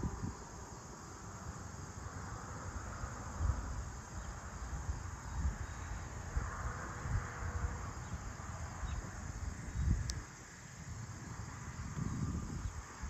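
A steady insect chorus over a rural field, with an irregular low rumble of wind gusting on the microphone.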